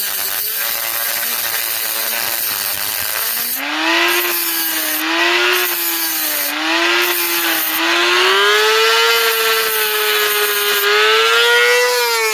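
Dremel rotary tool with a cutoff wheel running with a high whine, its pitch wavering under load as the wheel grinds a slot into a copper PEX crimp ring. About four seconds in, the whine shifts pitch and a harsh grinding hiss starts, coming and going as the wheel bites into the ring.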